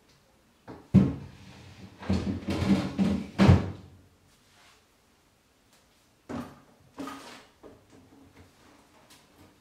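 Things being handled and put away: a sharp knock about a second in, a stretch of clatter ending in another sharp knock, then after a pause two lighter knocks.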